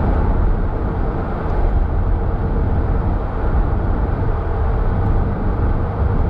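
Steady road and engine noise inside a moving car's cabin: an even, deep rumble with hiss above it.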